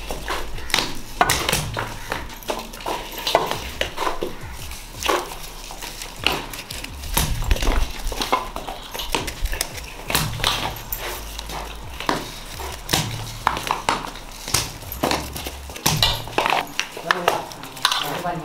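Dry clicking and rustling of small paper bijili firecrackers with stiff wire-like fuses as hands rake and pick through a heaped bowl of them. Voices talk in the background.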